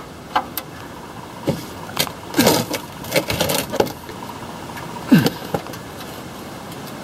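A wrench clicking and knocking against a seized oil drain plug on a car's oil pan as it is strained at without giving, several short metallic clicks scattered through, with a few short grunts of effort.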